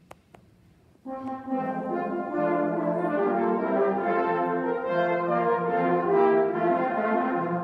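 The flugelhorn and tenor horns of a brass band playing a short passage of held chords in harmony, coming in about a second in and stopping at the end.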